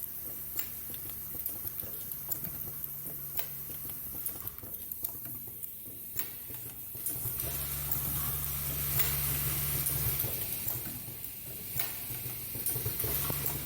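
Automatic plastic zipper slider mounting and combining machine (QLQ-SMM-2) running: a steady low mechanical hum with scattered light clicks and rattles. Just past the middle the hum grows louder for a couple of seconds.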